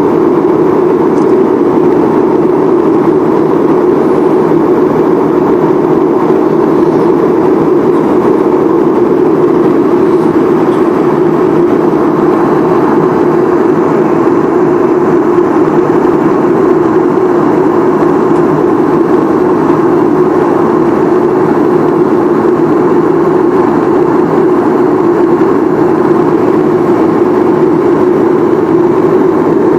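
Steady, loud cabin noise of a jet airliner in cruise flight: engine and airflow noise heard inside the cabin, unchanging throughout.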